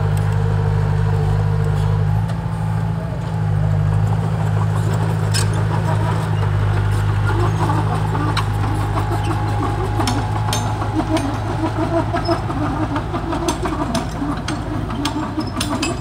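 Komatsu mini bulldozer's diesel engine running steadily under load as it pushes soil, with sharp clanks from the steel tracks becoming more frequent in the second half.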